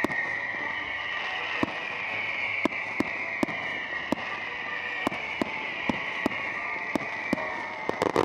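Aerial firework shells bursting in the sky, bangs coming about twice a second, over a continuous crackling hiss. A quicker cluster of bangs comes near the end.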